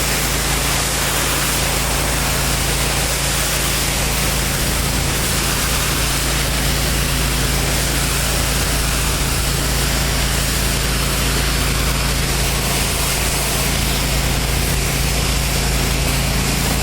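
Hot water pressure washer running steadily: its 30 hp air-cooled Kohler engine hums under the constant hiss of high-pressure water spraying.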